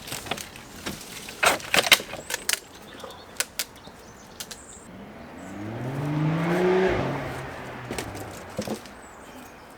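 A few sharp knocks and clicks of wood being handled. Then a motor vehicle's engine rises in pitch as it passes, and cuts off suddenly near the end.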